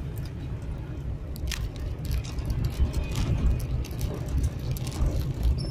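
Vehicle driving on a rough dirt track, heard from inside the cabin: a steady low rumble with scattered knocks and rattles.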